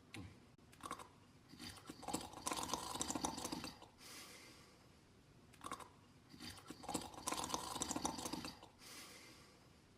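Snoring in sleep: two long rattling, crackling inhales about five seconds apart, each followed by a softer breathy exhale.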